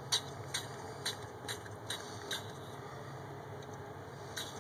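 Aerosol can of DeoxIT contact cleaner spraying through its extension straw in short, quick spurts, about two or three a second, pausing in the middle and starting again near the end. A low steady hum lies under it.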